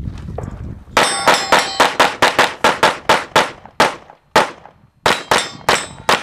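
Rapid gunfire from a practical shooting stage: a fast string of shots at about four a second begins about a second in, breaks briefly past the middle, then resumes. Several shots carry a metallic ring, as from steel targets being hit.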